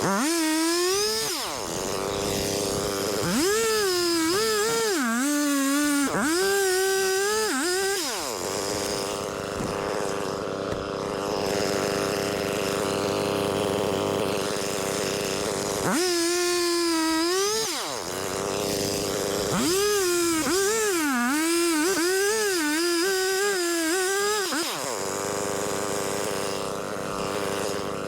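Stihl 500i chainsaw cutting through wood, its engine pitch dropping and wavering under load in two long spells. Between the cuts the saw runs at a steady pitch.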